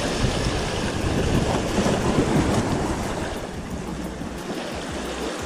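Sea surf washing against the boulders of a rock breakwater, a steady rushing noise with a low rumble that eases a little after about three seconds.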